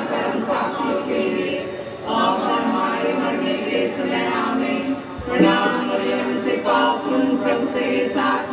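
A group of voices singing a hymn without instruments, in phrases of two to three seconds, with a brief low thump about five seconds in.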